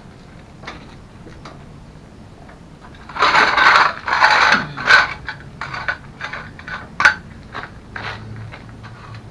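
Hand tools and metal parts being worked on a mobility scooter's rear hinge: two short loud scrapes about three seconds in, then a run of irregular sharp clicks and knocks.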